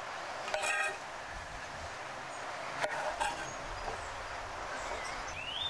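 Knife slicing button mushrooms on a wooden cutting board, with a sharp tap of the blade on the board about three seconds in, over a steady outdoor background hiss. A short buzzy tone sounds about half a second in, and a bird gives a rising chirp near the end.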